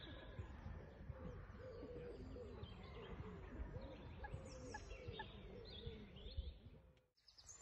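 Faint birds calling: a string of low, arched calls repeating about three times a second, with a few short high chirps among them, over a low rumble.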